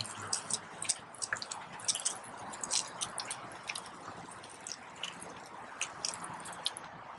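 Pump sprayer spraying salt-water weed killer: a steady hiss with many irregular small ticks and clicks.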